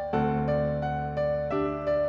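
Background music: a gentle piano-style keyboard melody of evenly paced notes, about three a second, over a held low note.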